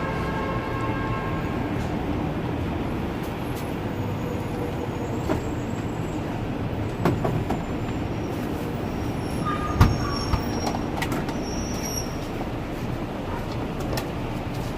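Steady, loud urban rumble with a few sharp knocks and clinks, the clearest about seven and ten seconds in.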